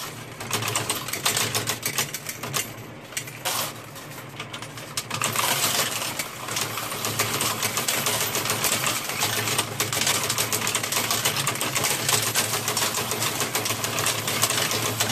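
Brandt 695 coin sorter and counter running: a steady motor hum under the dense, rapid clatter of coins being poured into its hopper and rattling through the sorting mechanism. The clatter grows thicker and louder about five seconds in.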